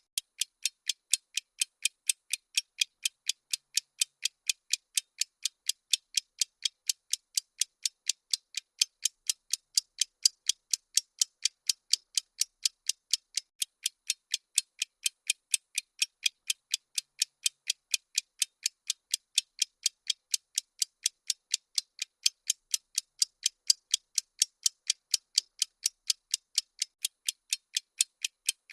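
Ticking-clock sound effect of a bomb countdown timer: sharp, high clicks at an even pace of about three a second.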